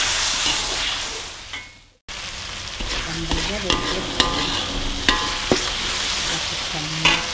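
Blended chilli-tomato sambal paste sizzling in hot oil in a metal wok as a metal spoon stirs it, with sharp clinks of the spoon scraping the pan. The sizzle cuts out abruptly about two seconds in, then resumes.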